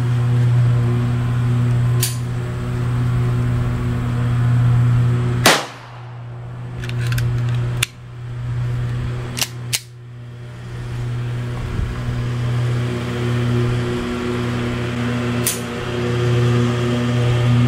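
Shooting-range sounds: a few sharp gunshot cracks, the loudest about five and a half seconds in, and smaller clicks of cartridges and a pistol being handled, over a steady low hum.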